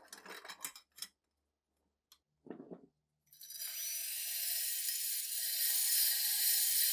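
A few light clicks and knocks as a rusty steel part is set into a bench vise. About three seconds in, a DeWalt cordless drill starts and runs steadily, its spinning attachment pressed against the rusty metal with a harsh, hissing scrub.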